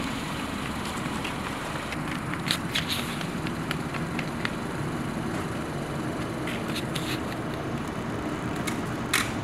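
Steady traffic and engine hum of a parking lot, with a few scattered light taps of footsteps on pavement.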